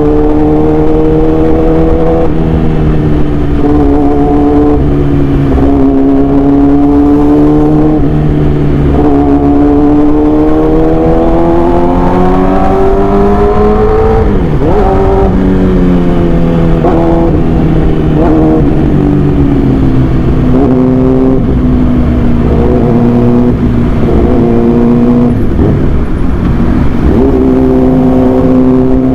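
Yamaha R6 inline-four sport-bike engine running at high revs through an SC Project aftermarket exhaust. Its pitch climbs slowly and drops back several times, with a sharp drop and recovery about halfway through.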